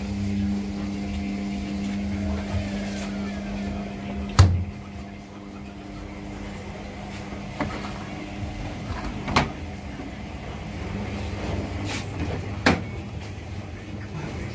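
Several front-loading washing machines running a wash, their motors humming as the drums turn, with a loud knock about four seconds in and a few sharp clicks later on.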